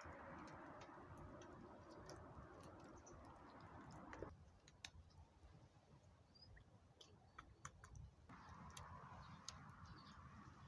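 Faint wood campfire crackling: scattered sharp pops and ticks over a low hiss, with the hiss dropping away for about four seconds in the middle.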